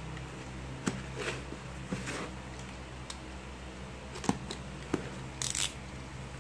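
Packing tape on a cardboard box being slit open with a blade: scattered sharp clicks and short scraping rasps, then a brief hissing rasp near the end as the tape parts and the cardboard flaps are pulled up.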